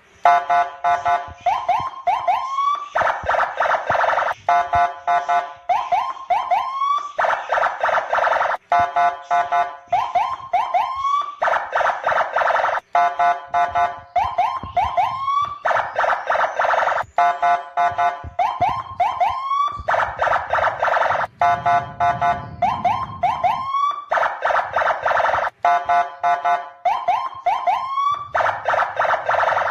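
Electronic siren of a police escort car, cycling through a repeating pattern about every three and a half seconds: rapid pulsing beeps, a few quick rising chirps, then a steady blaring tone.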